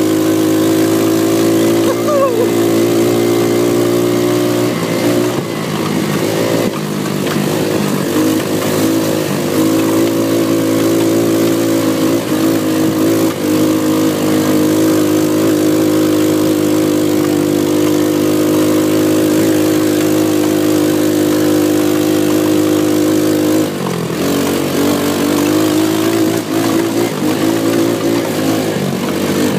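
Twister buggy's small petrol engine running steadily under way, the revs dipping and picking up again about a fifth of the way in and once more near the end.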